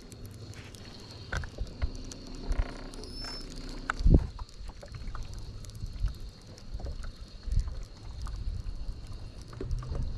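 Bass-boat sounds under a baitcasting reel being cranked: a steady low hum with a faint high whine, scattered light clicks, and one solid thump about four seconds in.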